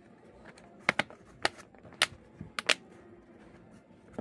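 Realme C12's plastic back cover being pressed onto the phone frame, its clips snapping in with about six sharp clicks over two seconds, some in quick pairs.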